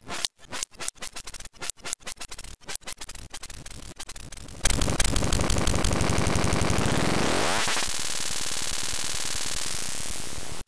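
A rapid train of sharp clicks that comes faster and faster. About halfway through, a loud, harsh electronic noise starts abruptly; a sweep rises steeply in pitch within it, and it then holds steady until it cuts off suddenly.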